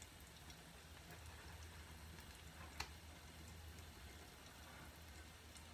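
Faint crackle of a shaving brush whipping soap lather, with one sharp click about three seconds in, over a low steady hum.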